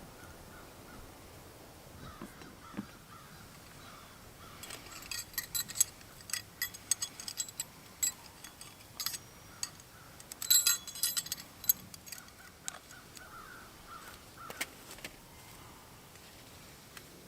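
Small metal objects clinking and jangling in a quick run of light clicks, loudest about ten seconds in. Crows caw faintly now and then.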